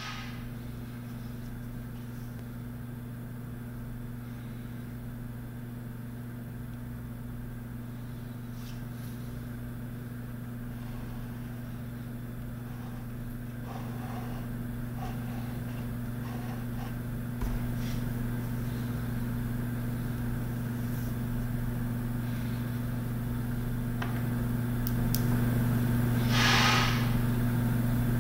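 A steady low hum that grows gradually louder, with a brief hiss-like noise near the end.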